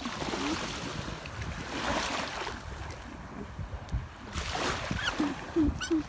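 Small sea waves breaking and washing up a sandy shore, two washes swelling up about two seconds and four and a half seconds in, with wind rumbling on the microphone.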